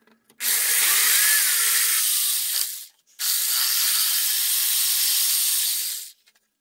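Jigsaw cutting through a wooden board in two runs of about two and a half seconds each, with a short break between, as a notch is cut from a drilled hole out to the board's edge.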